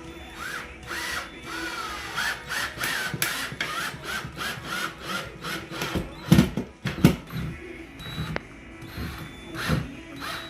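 Hand tool work on wooden trim: a quick run of sharp strokes, each with a short squeaky ring, about three a second, then two loud heavy knocks about six and seven seconds in and another near the end.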